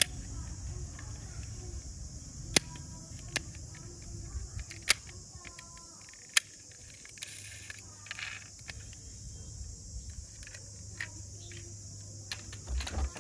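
Sharp clicks from the opening doors of a diecast metal toy Nissan Patrol being opened and snapped shut, several single clicks a second or more apart, over a steady high hiss. Near the end comes a brief clatter of toy cars in a plastic basket.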